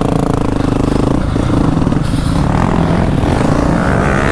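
Dirt bike engine, a Yamaha 450 four-stroke, running: held at a steady speed for about a second, then its pitch drops and wavers as the throttle changes.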